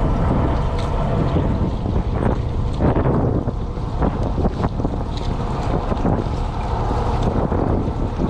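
Steady low rumble of a fishing boat's engine with wind buffeting the microphone, and a few short knocks near the middle.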